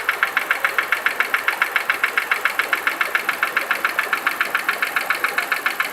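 Chevrolet Niva engine idling with a steady, rapid ticking knock from under the valve cover, about six or seven ticks a second.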